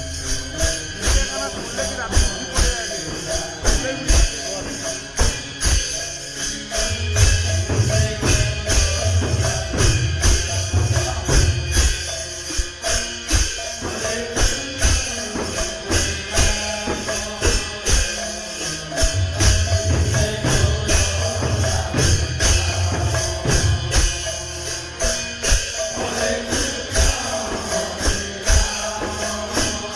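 Kirtan music played by a devotional group: jingling percussion in a fast steady rhythm over drum beats, without clear singing.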